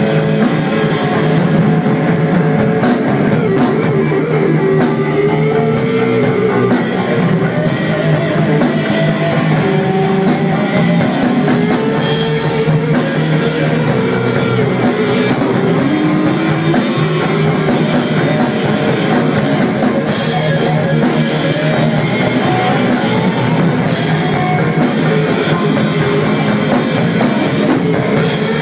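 Stoner rock band playing: electric guitars, bass and drum kit in a loud, steady groove, with cymbal crashes about twelve seconds in, around twenty seconds and again near the end.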